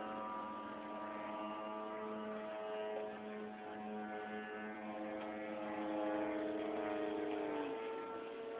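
Giant-scale radio-controlled aerobatic airplane's gasoline engine running steadily, its pitch drifting slowly up and down; one tone falls away about three-quarters of the way through.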